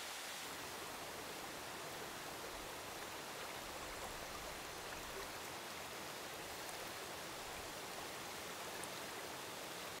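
Mountain stream flowing: a steady rush of water.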